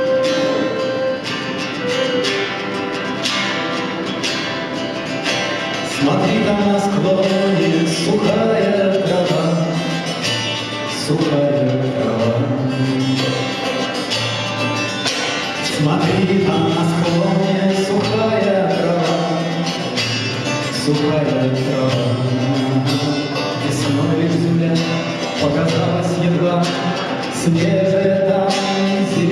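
Live folk-rock band music with a steady strummed beat; a fuller melody line comes in about six seconds in.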